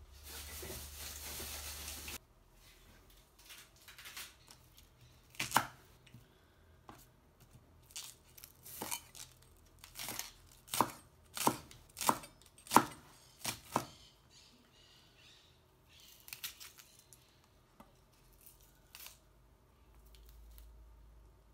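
Fresh green onions being trimmed and torn apart by hand and knife: a run of crisp snapping and cutting sounds, densest between about ten and fourteen seconds in, after a brief steady hiss at the start.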